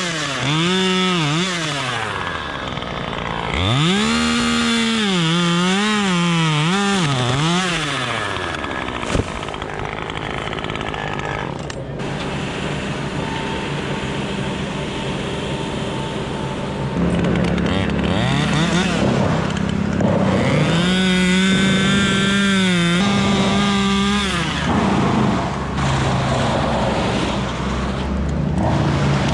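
Gas chainsaw cutting wood, its engine pitch repeatedly dipping and climbing back as the chain bites and frees in the cut, with a rougher, steadier stretch in the middle.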